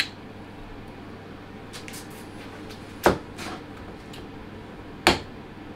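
A few sharp clicks and knocks of steady-rest parts being handled: the loudest about three seconds in, with a smaller one just after it, and another about five seconds in. A steady low hum runs underneath.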